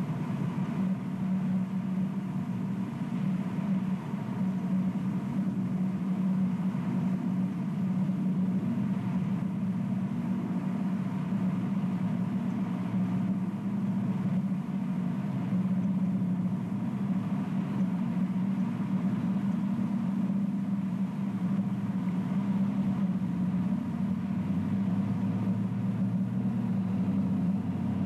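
A steady, unbroken low mechanical hum.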